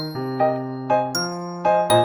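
Instrumental background music: a melody of short notes, changing several times a second.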